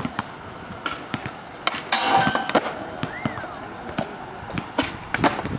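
Skateboards on a hard court: a run of sharp pops and board slaps from tricks and landings, over the rumble of wheels rolling.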